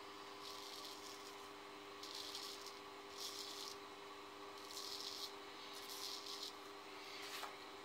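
Straight razor scraping through lathered stubble on the neck and jaw in short strokes, about six of them, each a faint rasp of about half a second.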